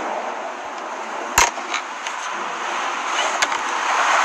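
Loud rushing noise of the Starship Mk1 failure during a cryogenic pressure test: the vented vapour cloud pours out, slowly growing louder. A sharp bang comes about a second and a half in, with a few fainter pops later.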